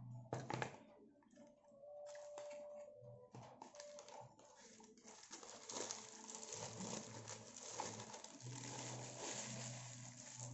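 Paper food wrapper and a paperboard food box being handled and unwrapped, crinkling and rustling with many small crackles, denser from about four seconds in.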